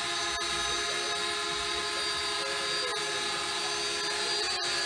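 Small toy quadcopter drone hovering, its propellers and motors giving a steady whine of several high tones over a hiss.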